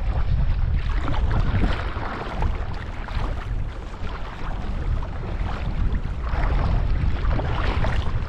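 Wind buffeting the microphone with a steady low rumble, over water sloshing and lapping in the shallows.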